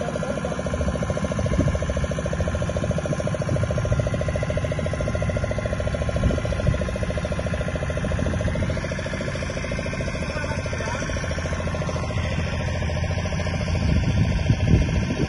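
Motorboat engine running steadily, with wind noise on the microphone.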